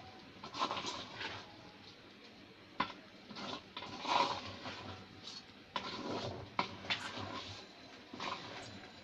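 Kitchen-utensil sounds: irregular clinks and short scrapes, like a spoon or spatula working in a cooking pot.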